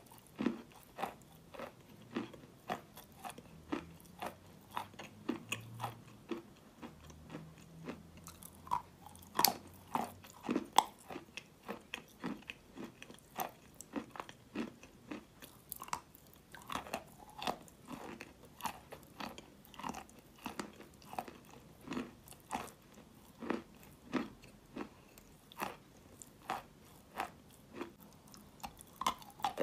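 A person biting and chewing a lump of wet chalk close to the microphone: crisp crunches, about two a second, with the loudest bites about ten seconds in.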